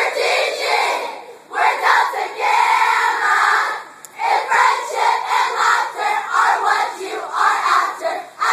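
A large group of young women shouting and chanting together in loud bursts of about a second each, with short breaks between them.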